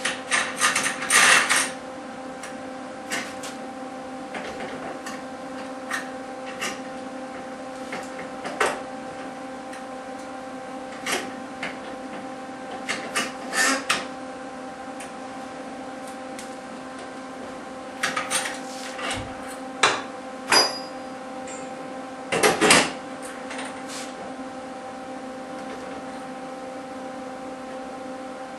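Scattered metal clinks and clanks as a hand-operated rod bender clamped in a vise is reset and worked to bend steel rod. There is a burst of clatter at the start and another past the middle, over a steady hum.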